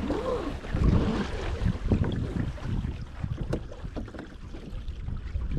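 Wind buffeting the microphone and water splashing around a small sailing trimaran under way, louder in the first couple of seconds and easing off later.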